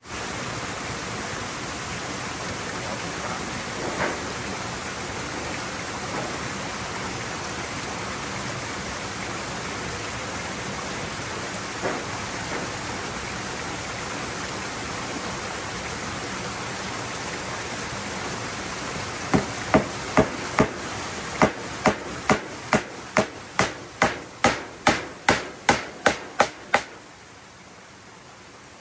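Hammer blows: a couple of single knocks, then a run of about twenty sharp strikes, roughly two a second, that stop a little before the end, over a steady rushing noise.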